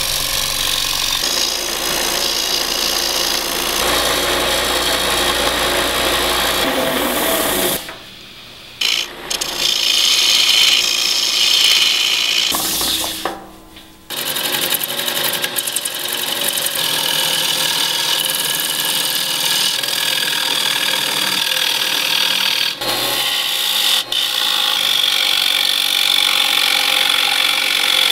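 Bowl gouge cutting into a spinning maple bowl on a wood lathe: a steady, rough scraping hiss as the tool peels shavings off the wood. The sound briefly drops away twice, about a third of the way in and again about halfway.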